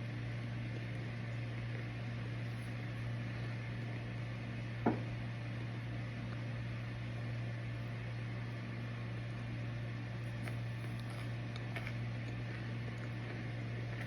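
Microwave oven running: a steady low hum over fan noise, with one sharp click about five seconds in.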